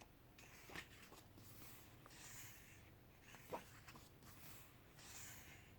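Faint paper sounds of a photo essay book being handled and its pages turned: two soft rustles and a few light taps.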